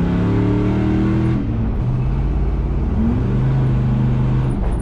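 4.8-litre LS V8 in an International Travelall pulling under acceleration. Its note climbs steadily, breaks off about a second and a half in, then climbs again until near the end. It runs smooth, without the misfire that new spark plugs and plug wires have just cured.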